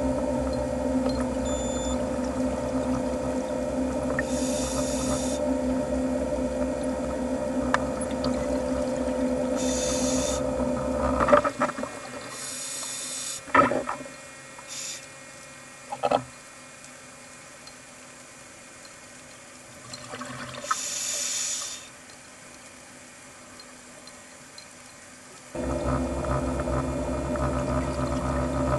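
Underwater ambience: a steady droning hum with a low and a middle tone, cutting out abruptly about eleven seconds in. A quieter stretch of water noise follows, with a few sharp knocks and several short bursts of high hiss. The hum returns suddenly near the end.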